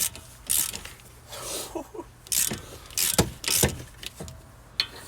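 Several short knocks and rattles of hand tools and car parts being handled, with quieter working noise in between.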